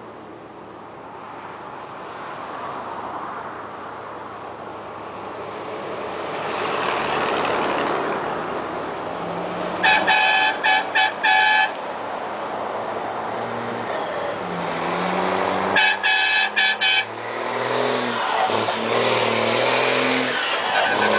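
A car's engine running and revving up, growing louder as it moves off, with its horn sounded in two quick runs of short honks, about ten seconds in and again about sixteen seconds in. The honks are the loudest sounds.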